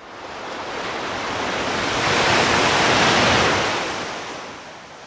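Surf: waves breaking and washing up a shore, swelling to its loudest about three seconds in and then fading away.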